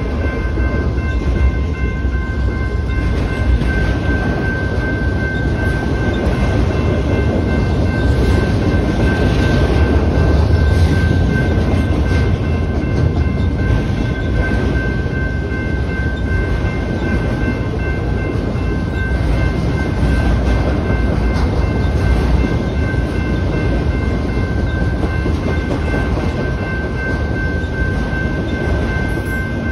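Freight train of autorack cars rolling past at close range: a steady low rumble with wheel clatter. Steady high-pitched tones run over it.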